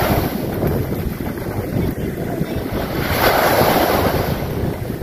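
Small sea waves breaking and washing up the sand, swelling twice, about three seconds apart, with wind buffeting the microphone.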